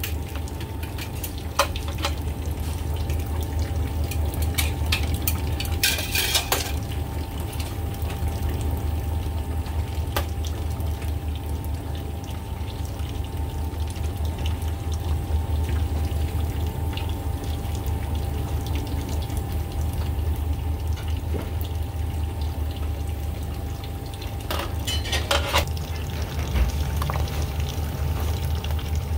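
Large pot of beef offal and brisket simmering in broth, the liquid bubbling and sloshing over a steady low hum, with brief clatters of a utensil against the pot about six seconds in and again a few seconds before the end.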